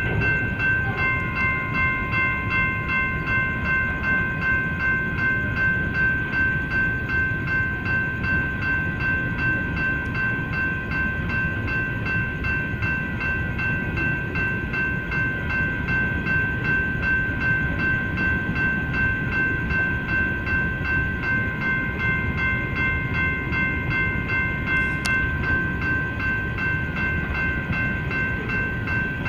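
Freight train of coal hopper cars rolling past with a steady low rumble of wheels on rail. Over it, the grade-crossing warning bell rings on without a break in quick, even strokes.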